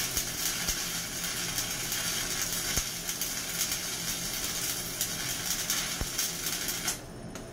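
Stick (shielded metal arc) welding on a vertical plate: the arc gives a steady crackling hiss with frequent sharp pops. It cuts off suddenly near the end as the arc is broken before the rod has burnt all the way down.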